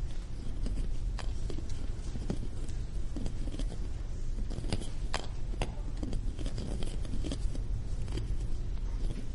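Small balls being played with and handled: scattered light clicks and taps at irregular moments, over a low steady hum.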